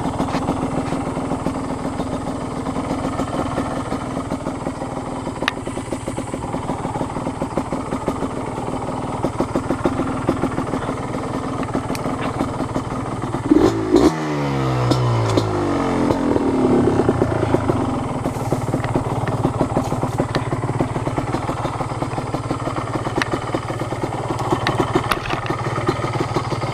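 Yamaha Blaster's single-cylinder two-stroke engine running under way. About halfway through the revs drop sharply, then climb again.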